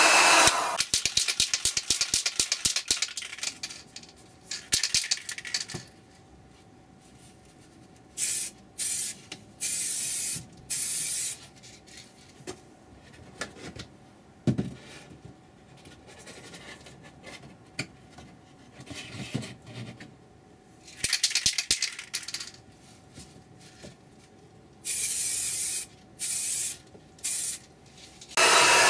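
Aerosol can of Repsol orange motorbike paint being shaken, its mixing ball rattling, then sprayed in short hissing bursts of about a second each. There are four bursts, then the can is shaken again and sprayed in one longer burst and a few short ones. A heat gun stops just after the start and comes back on at the very end.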